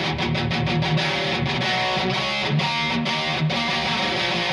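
Epiphone Flying V 1967 limited-edition electric guitar played with a distorted, overdriven tone: fast picked riffing with brief stops between chords.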